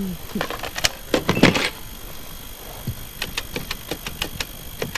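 A series of short, sharp mechanical clicks: a busy cluster in the first second and a half, then an even run of single clicks about five a second from about three seconds in.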